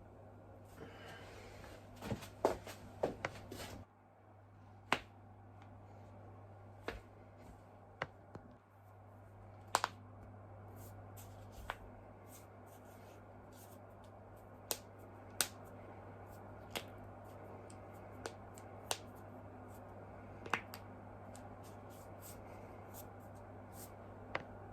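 Human joints being cracked, giving sharp single pops. There is a quick run of several pops about two to three seconds in, then a dozen or so separate pops spaced a second or a few seconds apart, over a steady low hum.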